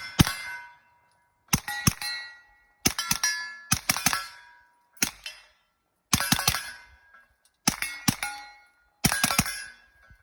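Suppressed 9mm CZ Scorpion 3+ Micro with a SilencerCo Octane 45 suppressor, firing 124-grain rounds in quick strings of two to four shots, seven strings in all. Each string is followed by a clanging metallic ring that fades within about a second, typical of hits on steel targets.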